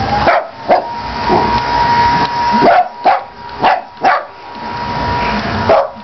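Dog barking about seven times in short, sharp barks, several close together in the middle, at a running carpet cleaner, whose steady motor noise and thin whine run underneath.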